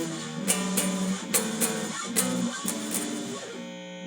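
Guitar playing a run of power chords, strummed several times and changing chord a few times, each one ringing between strokes.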